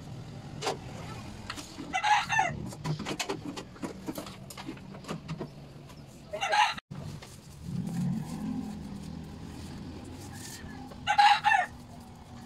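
Chickens calling, three short loud calls a few seconds apart, over light clicking and knocking of household items being handled.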